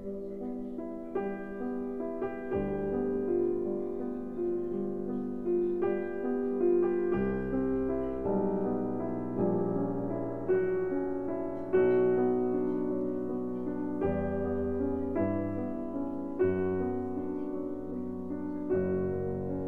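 Background piano music, with held notes and chords changing about once a second.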